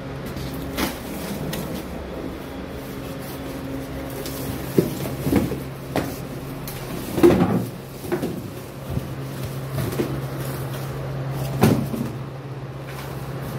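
Plastic supplement tubs bumping and knocking as they are handled out of a cardboard box and set down on a tiled floor: a scatter of irregular knocks and thuds, the loudest about seven seconds in, over a steady low hum.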